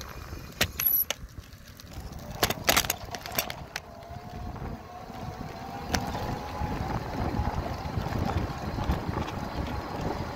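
Wind buffeting a phone microphone on a moving bicycle, a steady low rumble, with a scatter of sharp clicks and knocks in the first four seconds and one near six seconds as the bike rolls over the cracked asphalt path.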